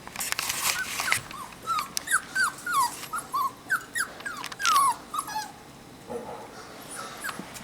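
Rottweiler puppies whimpering in a run of short, high, falling cries, two or three a second, among scattered clicks and scuffles; the cries die away about two thirds of the way in.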